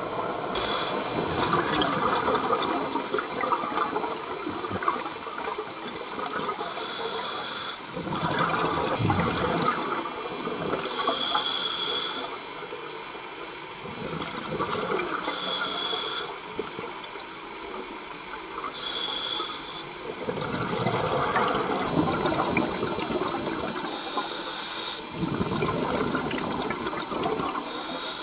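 Scuba diver breathing through a regulator underwater: a short hiss on each inhale about every four seconds, with a rush of exhaled bubbles swelling and fading between them.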